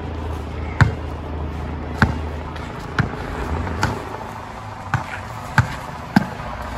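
Basketball being dribbled on an outdoor hard court: about seven sharp bounces roughly a second apart, coming quicker near the end, over a steady low background hum.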